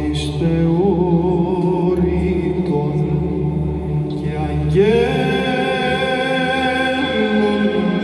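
Male choir singing Orthodox Byzantine chant: a melody moves over a steadily held low drone note (the ison). About five seconds in, a new, stronger phrase enters higher up.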